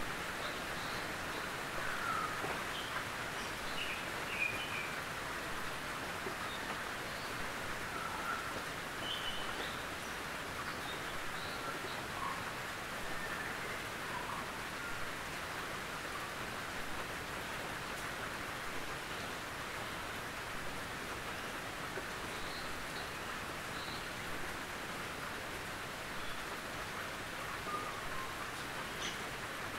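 Gentle rain falling steadily on a tin roof: an even hiss of drops, with short higher-pitched sounds scattered through it.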